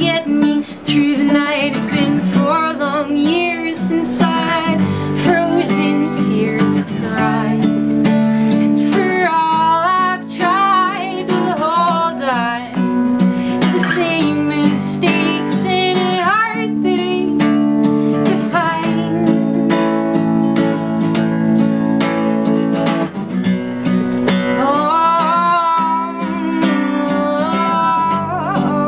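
A woman singing while strumming an acoustic guitar, with steady rhythmic strums under her voice.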